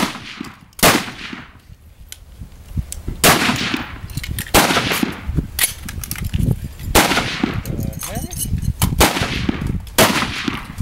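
Several high-power rifles firing a rapid-fire string on a firing line: about seven loud shots at irregular spacing, each with a ringing echo tail, and fainter shots from further down the line between them.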